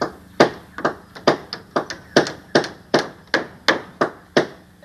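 Hammer striking a wooden balcony railing slat: a steady run of about a dozen blows, two to three a second.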